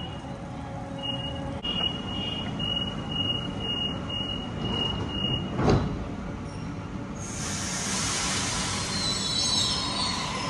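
Sydney Trains Waratah double-deck electric train at a platform: a high beep repeats about twice a second for several seconds, typical of the door-closing warning. A sharp knock follows, then from about seven seconds in a loud hiss of air.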